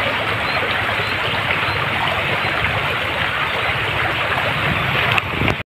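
Steady outdoor rushing noise that cuts off suddenly near the end.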